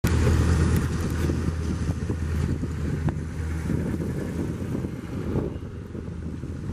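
Wind buffeting the camera's microphone: a steady low rumble, with a few faint clicks.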